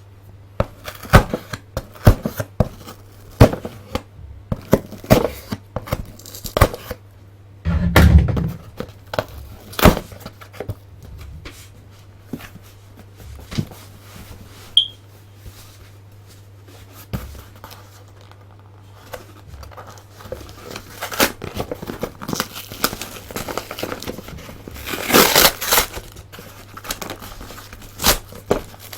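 Cardboard box being torn and pried open by hand: irregular crinkling, tearing, scraping and knocks of cardboard and packing material. A heavy thump comes about eight seconds in, and a longer tearing rustle near the end.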